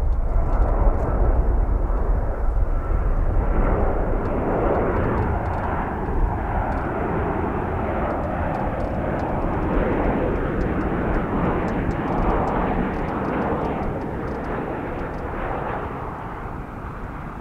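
Boeing 737-800 airliner's CFM56-7B turbofan engines on landing approach: a steady jet noise with a deep rumble, loudest at the start and slowly fading as the plane descends to the runway.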